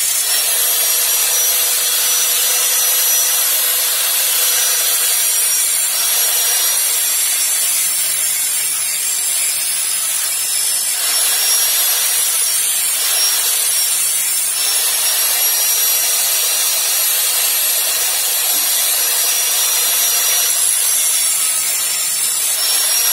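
Electric angle grinder running without a break, its disc grinding a thin metal folding-knife part clamped in a bench vise. It gives a steady high whine over a harsh grinding hiss.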